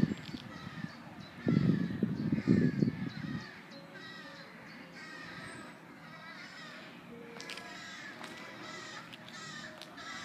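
Birds calling over and over, many short calls overlapping. A loud low rumble on the microphone from about one and a half to three and a half seconds in.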